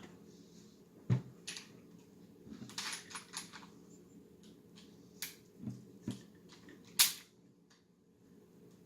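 Scattered clicks and knocks of Glock pistol parts being handled on a bench, with short scratchy rubbing as a dry rag wipes them. There is a sharp knock about a second in and another at seven seconds.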